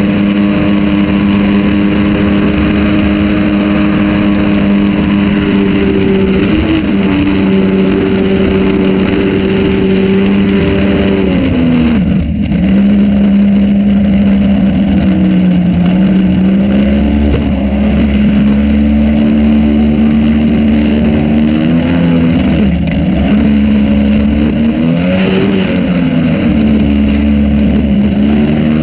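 Jon boat's jet-drive engine running under way at a steady pitch, easing off and picking back up briefly several times as the throttle is eased, with water rushing past the hull.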